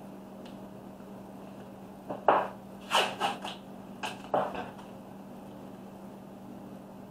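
Green painter's tape being handled, torn and pressed down on a towel-wrapped tumbler: a quick run of about six short rips and crinkles a couple of seconds in, over a low steady hum.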